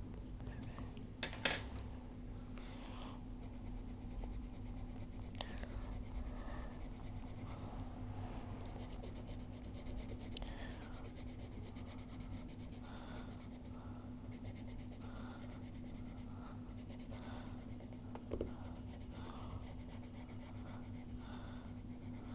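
Black colour pencil shading on paper: continuous scratchy rubbing of short back-and-forth strokes. There is a sharp tap about a second and a half in and a smaller one near the end, over a low steady hum.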